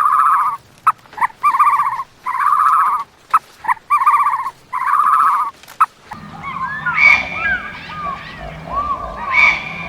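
An animal calling five times in quick succession, each call a short wavering cry. About six seconds in it gives way to a mix of quick chirping and whistling calls over a low rumble.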